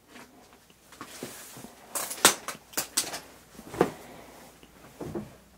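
A run of irregular knocks and clatters, loudest about two seconds in and again near four seconds in, with a softer one near the end.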